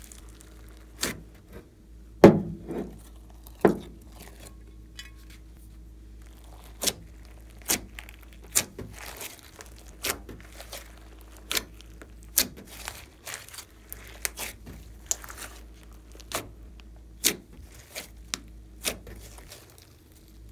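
Thick glossy slime being squeezed, pressed and stretched by hand, giving irregular sticky pops and clicks, the loudest about two seconds in.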